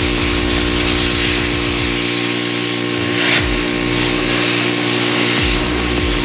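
Pressure washer spraying water in a steady hiss, over electronic dance music with a pulsing, sweeping bass.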